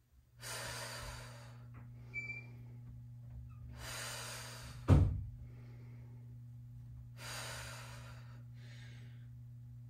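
Heavy, drawn-out breaths of a person exercising, three long breaths about three and a half seconds apart, in time with slow dumbbell pullovers. A single sharp thump near the middle is the loudest sound, and a steady low hum runs underneath.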